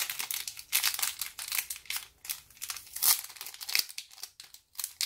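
Thin clear plastic jewelry bags crinkling as they are handled, in a run of irregular crackles.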